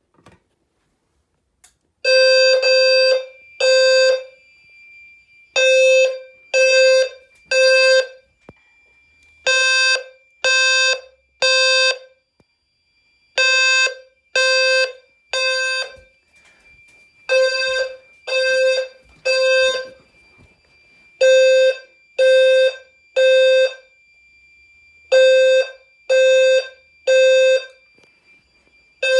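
Fire alarm system in alarm: its horns sound a low-pitched, buzzy tone in the temporal-3 evacuation pattern, three blasts of about half a second and then a pause, over and over. The low tone fits a low-frequency sounder, and a faint steady high tone runs underneath. The alarm starts about two seconds in, after the pull station is pulled.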